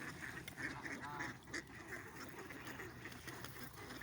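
A flock of ducks and other waterfowl calling faintly, many short overlapping quacks and calls, with one brief wavering call about a second in.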